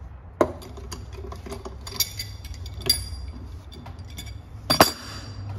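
Metal-on-metal clinks as the steel valve adapter is worked off the retrieval tool's inner barrel with a spanner: four sharp clinks with brief ringing, the loudest near the end.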